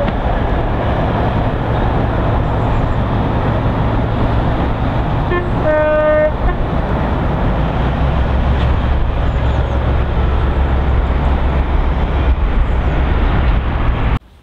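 Two LMS Stanier Class 5 4-6-0 steam locomotives working hard as a double-headed train pulls away, a loud dense rush of exhaust, with a short toot about six seconds in. From about eight seconds a low, steady drone joins in from the diesel locomotive at the rear of the train. The sound cuts off just before the end.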